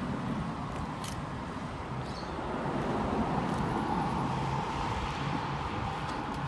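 Steady motor-vehicle rumble, with a sharp click about a second in.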